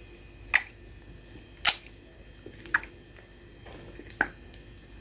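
Handling noise on a phone's microphone: a handful of short, sharp clicks and rustles, roughly one a second, over quiet room tone, while a cat on the holder's shoulder rubs against her face.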